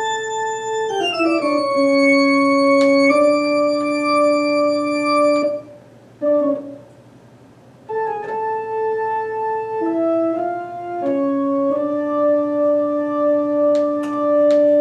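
Baldwin HT2 electronic organ playing slow, sustained chords with the tremolo on, the notes stepping down, a brief break about halfway through, then more held chords.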